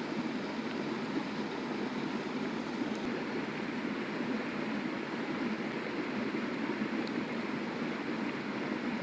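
River water flowing with a steady, even rushing sound.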